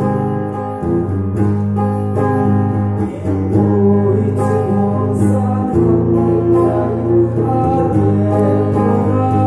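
Live music: an electric guitar playing a song's opening, over held low notes and a light, steady beat.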